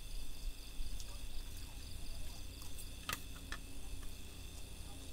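Steady chirring of insects, with a few sharp clicks or knocks, the loudest a little past three seconds in and another about half a second after.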